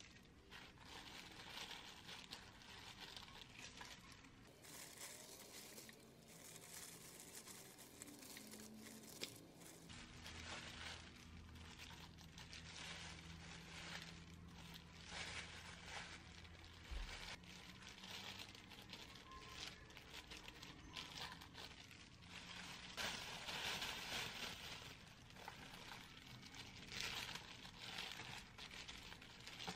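Thin plastic food bags and a plastic glove crinkling and rustling faintly in short, irregular spells as hands handle lettuce and tomato slices.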